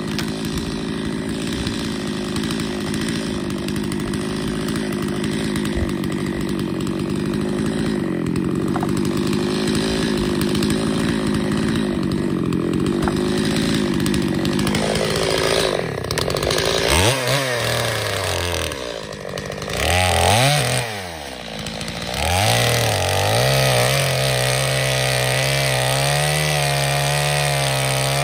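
Chainsaw running under load, cutting a sycamore round. About halfway through, the engine speed drops and climbs back twice, then holds steady again.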